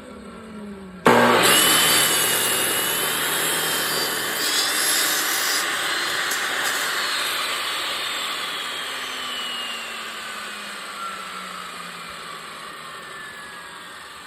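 14-inch chop saw fitted with a wood-cutting blade, switched on abruptly about a second in and cutting through a small-diameter branch. Its motor then winds down, the whine falling in pitch as the sound slowly fades.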